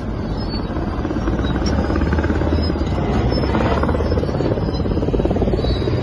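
A large engine running loudly and steadily, with a fast, even chopping pulse, starting abruptly.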